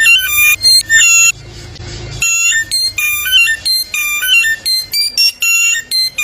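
Bare-throated whistler (Samyong) singing loud, rapid runs of clear whistled notes that jump abruptly between pitches, electronic-sounding like a ringtone, with a pause of about a second shortly after the start.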